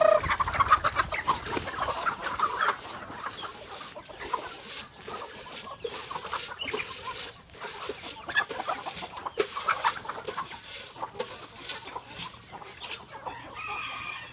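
A flock of native chickens clucking as they gather at feeding time, with many short sharp taps throughout.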